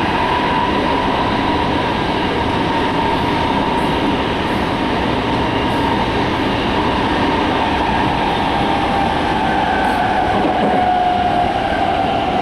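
Running noise of a Toyo Rapid Railway 2000 series electric train heard inside the passenger car: a steady rumble of wheels and running gear, with a thin whine near 1 kHz that slowly drops in pitch.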